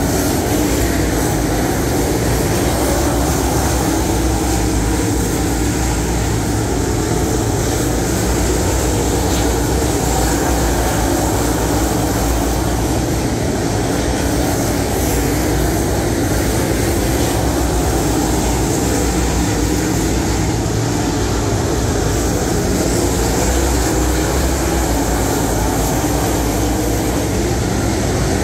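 A pack of dirt late model race cars' V8 engines running hard at racing speed, a loud, steady wall of engine noise with no break.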